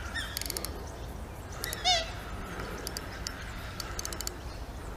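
Spinning fishing reel ticking in short rapid bursts while a hooked fish pulls against the bent rod. A single short bird call about two seconds in.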